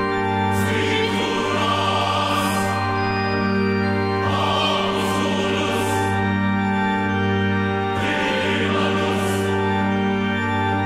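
Background music: a choir singing long held chords over a sustained low bass, swelling three times.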